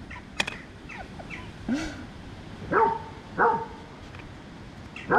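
Cats meowing: a run of short calls, the loudest three coming about a second apart near the middle and one more at the end, several sliding down in pitch. There is a sharp click about half a second in.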